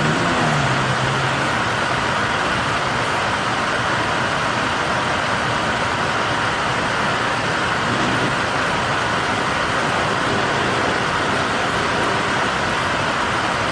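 Steady, even rushing noise with no rhythm, such as room noise or hiss picked up by a laptop microphone. A short low sound falls in pitch right at the start.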